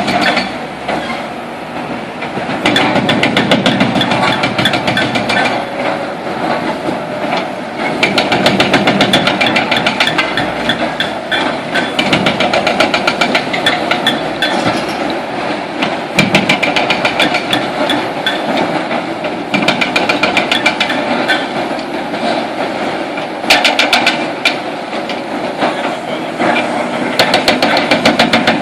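Hydraulic breaker on a demolition excavator hammering concrete in rapid runs of blows, each run lasting a few seconds, with the excavator's engine running underneath.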